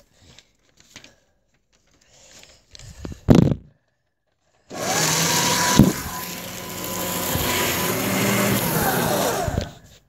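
A small electric motor, like a household appliance's, starts about five seconds in, runs steadily with a dense noisy whir for about five seconds, then stops. A sharp click comes about a second after it starts, and a short loud knock comes before it.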